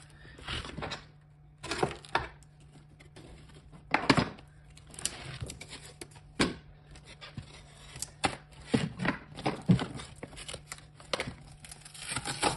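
Yellow plastic insulating sheet being peeled and pulled off a lithium pouch-cell battery pack: a series of irregular crinkling and tearing sounds with sharp crackles.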